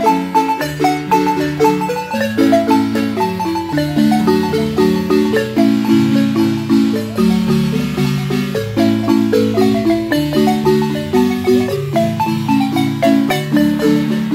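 Marimba ensemble playing a son: quick, evenly repeated mallet notes over a lower bass line in a steady dance rhythm.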